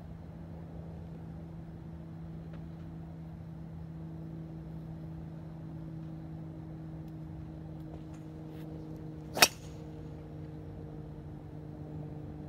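A single sharp crack of a golf driver striking a ball off a hitting mat, about nine seconds in, over a steady low hum.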